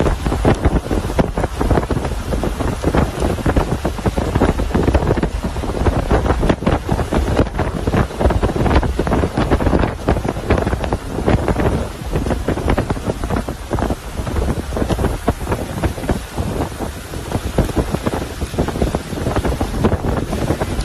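Loud wind buffeting the microphone, a dense low rumble with constant gusty flutter, over the hiss of rain.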